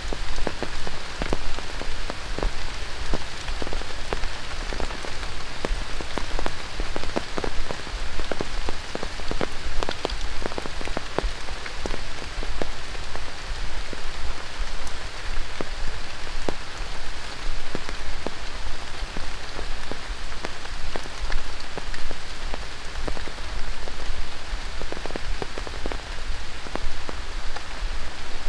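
Heavy tropical rain falling on dense rainforest foliage: a steady hiss with many sharp drips and drop impacts close by.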